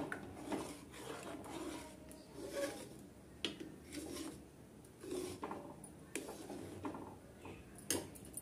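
Steel spoon stirring milk pudding in an aluminium pot, scraping and swishing over the bottom about once a second, with a few sharp clicks of the spoon against the pot.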